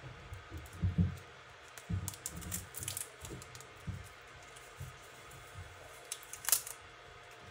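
Irregular small clicks, taps and soft knocks of hands handling packaging and a blade on a tabletop, with a few sharper clicks, the loudest about three and six and a half seconds in.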